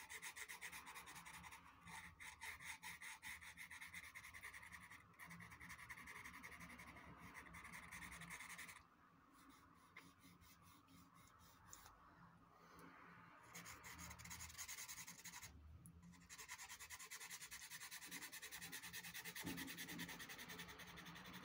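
Derwent pastel pencil scratching across Clairefontaine Pastelmat, a surface like fine sandpaper, in quick back-and-forth shading strokes. The sound is faint and lets up for a few seconds about nine seconds in.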